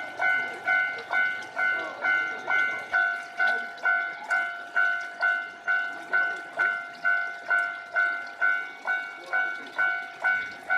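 Japanese railway level-crossing warning bell ringing steadily, a little over two strokes a second, each stroke the same clanging tone fading quickly: the crossing is signalling that a train is approaching or passing.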